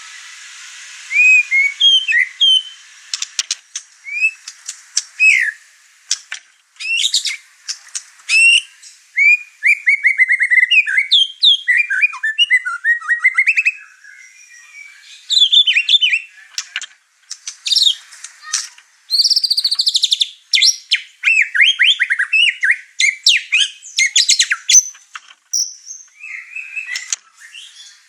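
White-rumped shama (murai batu) singing excitedly, running through its repertoire of learned phrases. The song is loud and varied: whistles, rapid trills and sharp chips in bursts a second or two long, with brief pauses between them.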